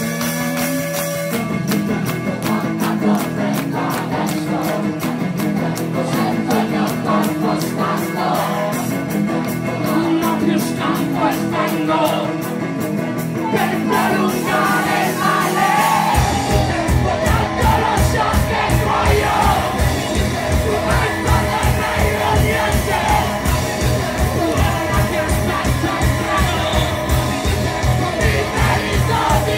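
Indie rock band playing loud live, with a lead singer over guitars and drums and crowd voices shouting along. About sixteen seconds in, the bass and kick drum come in harder with a steady pulse.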